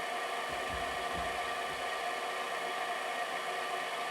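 Steady hum of a running electric motor, a constant noise with several steady whining tones and no change in pace.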